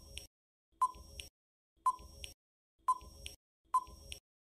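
Quiz countdown-timer sound effect: five short ticks, about one a second, each with a brief ping at its start.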